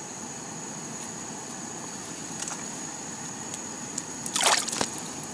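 Handling noise at the ice hole: a couple of faint clicks, then a brief burst of crackling clatter a little after four seconds in. Under it runs a steady hiss with a thin, constant high whine.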